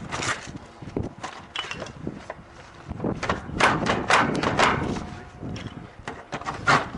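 Irregular knocks and thuds, coming thick and fast from about three seconds in to about five, with a sharper knock near the end.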